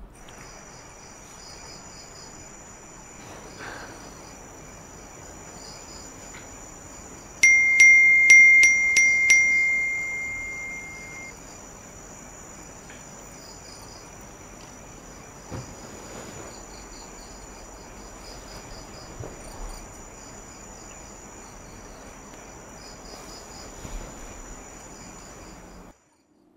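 Crickets chirping steadily, with a quick run of about six bright phone message-notification chimes about seven seconds in that ring on and fade over a couple of seconds.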